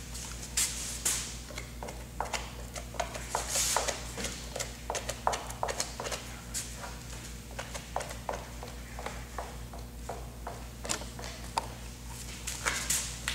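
Gloved hands wiping and scraping excess adhesive and filler off the edges of a composite pipe-repair wrap: irregular light clicks and scrapes with a few brief swishes, over a steady low hum.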